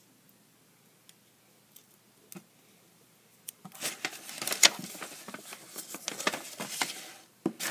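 Sheet of paper being handled close by: a few faint clicks, then from about halfway dense crackling and rustling with sharp snaps.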